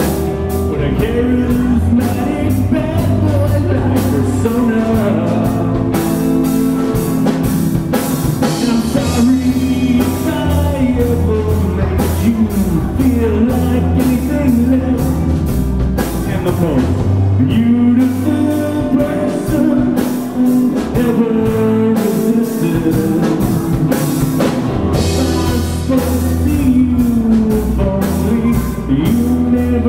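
Live rock trio playing at full volume: electric guitar, electric bass and drum kit.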